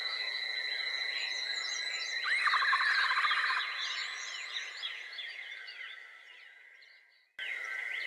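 Wild birds chirping and calling over a steady high tone, with a louder burst of song about two seconds in. The sound fades away to silence near the end, then cuts back in suddenly.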